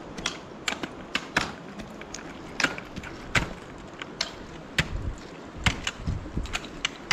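Ice axe picks striking a frozen waterfall, several climbers at once, giving irregular sharp chopping hits of varying loudness, about three a second.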